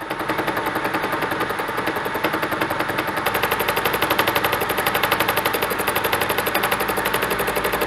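Milling machine cutter taking an interrupted cut on a block of magnetic, stainless-like steel, with a rapid, even, repeating clatter of the cutting edge striking the metal.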